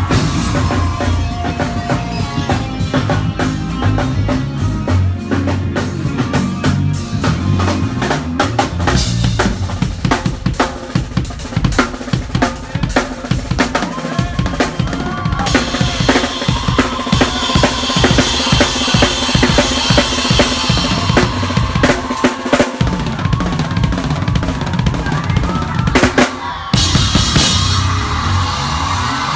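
Drum solo on a full drum kit: fast fills across snare, toms and bass drum, with a long stretch of heavy cymbal crashing from about halfway through.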